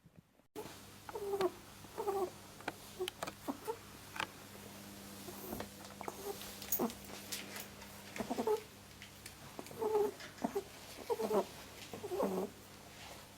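Pet rabbit making short, squeaky pitched calls in irregular clusters, mixed with small sharp clicks, over a faint steady low hum.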